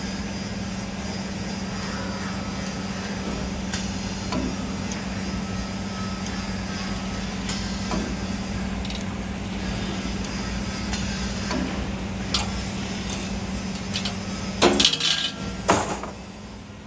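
CNC 3D wire bending machine running with a steady hum, its bending head clicking now and then as it feeds and bends metal wire. Near the end a burst of loud metallic clanks as the finished bent piece is cut off and freed from the head.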